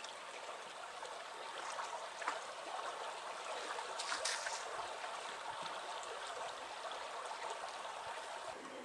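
Shallow mountain river running over a gravel riffle: a steady rush and babble of water, with a few light splashes about two and four seconds in.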